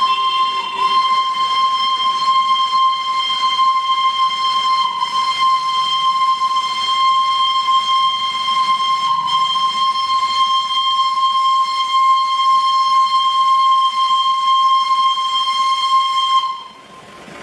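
Darjeeling Himalayan Railway steam locomotive's whistle sounding in one long, steady blast with a hiss of steam under it, cutting off sharply near the end.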